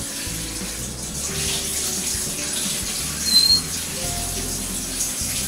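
Bathtub tap running as the tub fills: a steady rush of water, with background music over it. A short high-pitched sound stands out a little over three seconds in.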